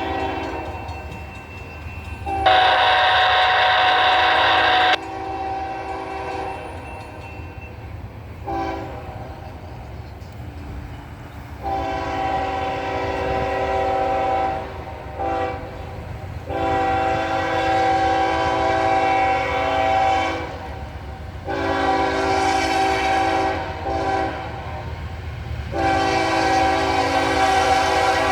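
Norfolk Southern freight locomotive's air horn sounding a series of long and short chord blasts, the first and loudest a few seconds in, over the steady low rumble of the train's diesel locomotives.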